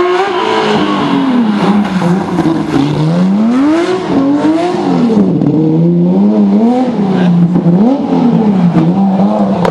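Porsche 911 GT3 rally car's flat-six engine at full effort, revving up and falling back again and again, its note rising and dropping about once a second with the throttle and gear changes.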